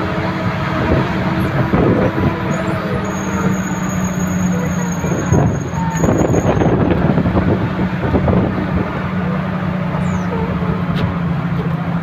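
Vehicle running on the road, heard from inside the cabin: a steady engine drone with rattling and road noise. A faint high whine sounds from about three to seven seconds in.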